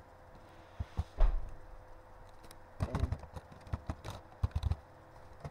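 Computer keyboard being typed on in short bursts of keystrokes, with one louder thump about a second in.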